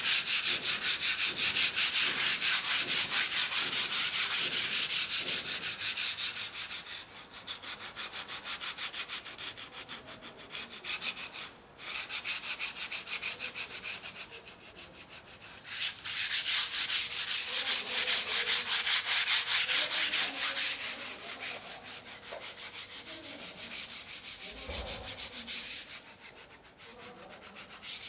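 Sandpaper rubbed back and forth over a surface in quick, steady strokes, a dry hiss several strokes a second. It is louder for the first few seconds and again past the middle, and softer in between, with a brief pause about two-fifths of the way through.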